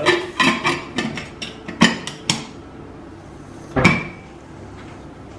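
Metal lid of a stovetop pressure cooker clattering and clicking as it is fitted and its handle worked to lock it, several quick knocks over the first two and a half seconds. One louder ringing metal clink about four seconds in.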